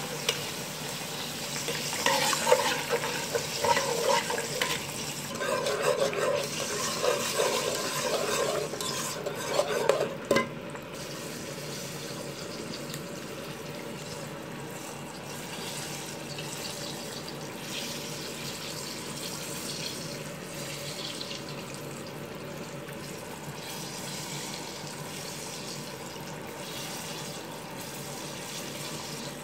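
Milk being stirred with a metal whisk into a hot butter-and-flour roux in a pan, with liquid sloshing, over a steady sizzle of the cooking sauce. The louder stirring stops about ten seconds in, leaving only the even sizzle.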